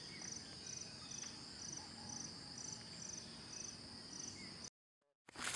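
Faint crickets chirping in a steady, high-pitched pulse about twice a second over a continuous insect drone, cutting out to silence for about half a second near the end.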